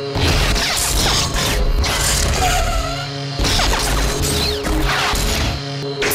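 Lightsaber sound board playing the Tano (Season 1) sound font: a series of blade clash sounds, about one every second or so, over the saber's steady hum.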